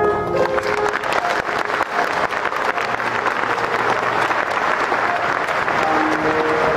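Audience applauding, a dense clapping of many hands that swells just after the start and eases near the end, as held piano notes come back in.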